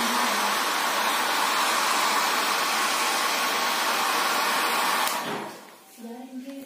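Handheld hair dryer blowing steadily with a whine from its motor, switched off about five seconds in and dying away over half a second.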